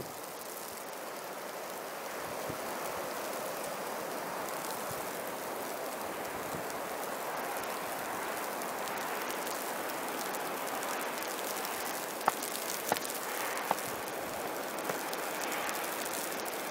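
Steady outdoor rushing noise, with three sharp clicks about three-quarters of the way through.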